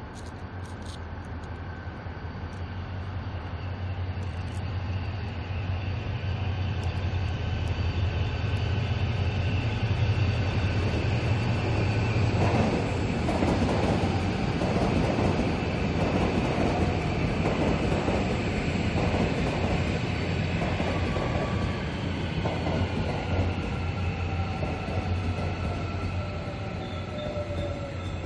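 Seoul subway electric train approaching and running past close by, its VVVF traction inverter giving steady whining tones over a low hum. From about halfway through, the wheels clatter over the rail joints as the cars go by. Near the end the inverter tones fall in pitch as the train slows.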